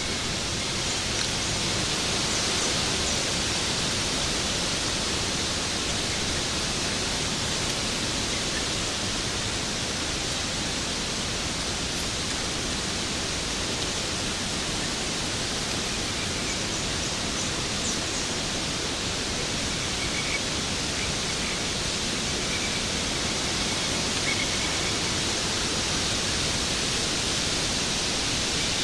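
Waterfall: falling water rushing steadily and evenly, with no breaks.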